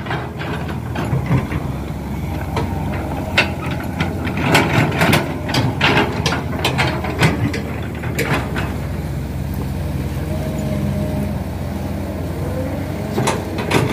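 A tracked hydraulic excavator's diesel engine runs steadily, with repeated metallic clanks and knocks from the machine as it works. The clanks come mostly in the middle of the stretch, with two more near the end.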